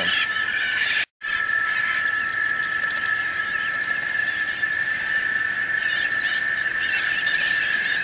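Parrots squawking at intervals over a steady high-pitched whine, with a brief dropout about a second in.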